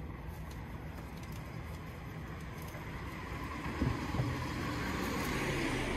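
Street traffic noise: a steady low rumble, with a passing car growing louder over the last couple of seconds.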